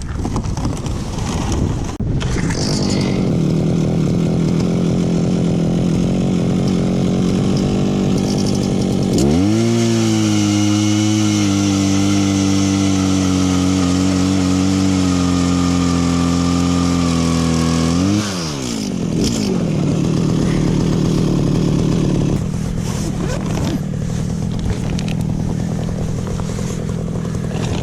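Gas-powered ice auger engine running at a lower speed, then revved hard about nine seconds in and held at high speed for about nine seconds while boring a hole through the ice, then throttled back to a lower speed.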